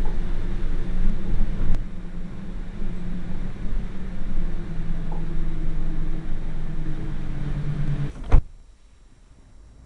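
Inside an Alicante FGV tram: rumble and a steady low hum of the tramcar. About eight seconds in it cuts off suddenly with a sharp click, leaving only faint noise.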